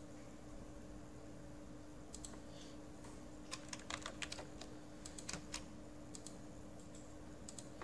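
Computer keyboard keystrokes and mouse clicks, light sharp clicks coming in small clusters over a faint steady hum.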